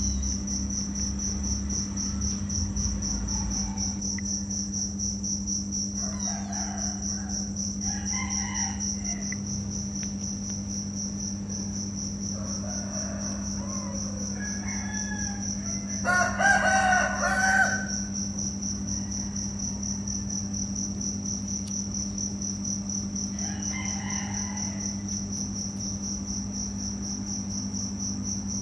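Crickets trilling steadily over a low hum. About sixteen seconds in, a rooster crows once, loudly, for about a second and a half, with a few fainter calls before and after.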